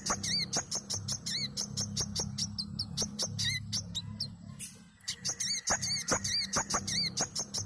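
Brown-throated sunbird (burung manggar) singing a fast, busy string of sharp high chirps and arched whistled notes, with a brief pause about four seconds in before it starts again. A steady low hum runs underneath.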